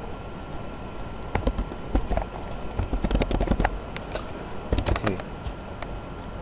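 Computer keyboard typing: quick keystroke clicks in three short bursts, about a second and a half in, around three seconds in, and near five seconds in.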